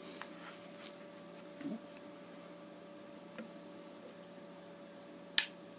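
Small knocks and rustles from a homemade arm cannon's metal and plastic parts being handled, then one sharp click near the end, over a faint steady hum.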